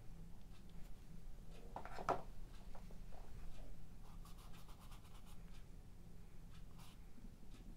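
Paintbrush scrubbing oil paint onto a textured stretched canvas, with one louder scrape about two seconds in and then a run of short strokes in quick succession.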